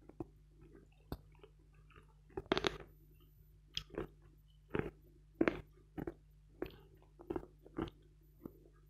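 Close-miked chewing of a bite of "Vatutin" chalk: sharp, crisp crunches about once or twice a second at an uneven pace, the loudest a little after two and a half seconds in and again around five and a half seconds.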